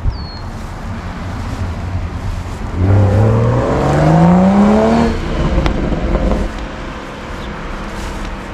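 A car engine accelerating: about three seconds in, its pitch climbs steadily for about two seconds, then the sound fades away. A steady low engine rumble runs underneath.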